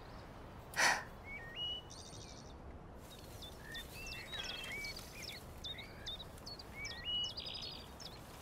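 Faint songbirds chirping again and again, with short buzzy trills twice, over a soft outdoor hiss; a brief breathy sound about a second in.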